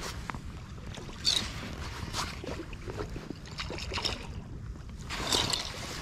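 Wind rumbling on the microphone while a hooked striped bass thrashes and splashes at the water's surface as it is reeled in. There are sharp splashes about a second in and again near the end.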